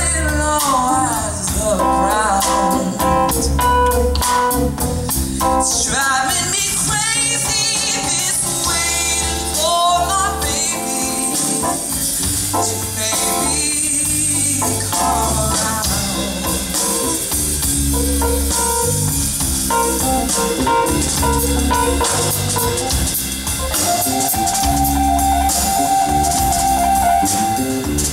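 Small live jazz band playing a slow jazz-blues ballad: a woman's voice singing wordless, wavering lines in the first half, over stage piano, electric bass and drum kit that carry on with held notes through the second half.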